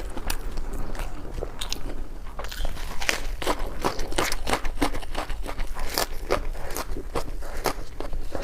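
A person biting and chewing crunchy food, a dense irregular run of sharp crunches.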